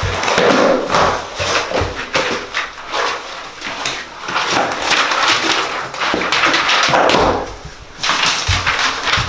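Hurried rustling and flapping of a large binder's pages and sleeves being leafed through, with knocks and a few dull thumps as the binder is handled and pressed down on the floor near the end.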